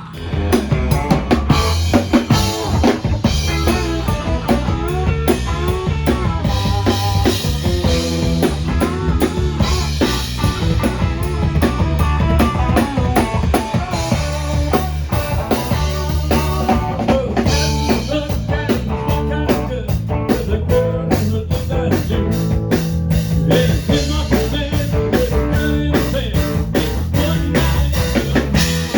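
Live rock band playing: a drum kit keeping a steady beat with snare and bass drum under bass guitar and electric guitar.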